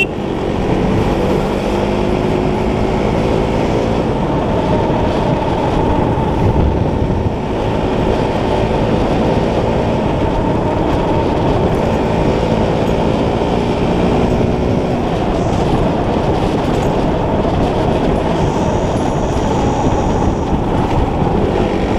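Motorcycle engine running at steady cruising speed, mixed with a constant rush of wind on the microphone; the engine pitch drifts slowly up and down with small changes in throttle.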